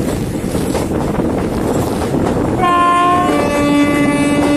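Passenger train running, heard from an open coach door with wind rushing past. About two and a half seconds in, a train horn sounds: a short higher note and then a longer, lower one.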